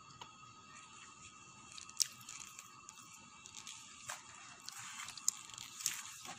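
Close-up chewing of pizza, with crisp crunches and sharp crackles of the crust, scattered and growing busier from about two seconds in.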